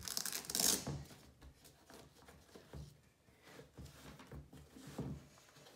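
A hook-and-loop (Velcro) strap on a child's high-top sneaker ripped open in one loud tearing rasp lasting about a second, followed by soft rustles and light taps of the shoe being handled.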